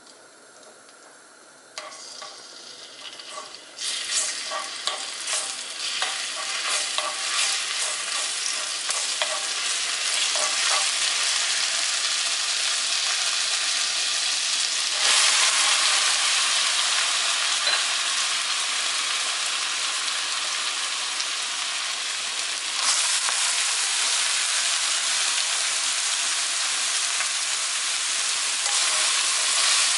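Minced garlic sizzling in hot perilla oil in a frying pan, a steady hiss that starts about two seconds in and grows louder, with light clicks and scrapes of a spatula stirring in the first several seconds. The sizzle jumps in level a few times and gets louder again near the end.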